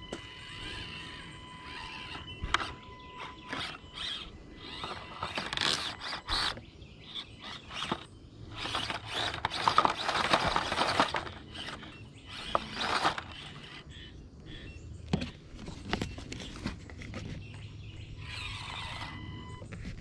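Axial SCX24 1/24-scale RC crawler climbing over rock: a thin steady whine from its small electric motor and gears for the first few seconds, then irregular scraping, clicking and crunching of tires and grit on the rock, loudest about ten seconds in.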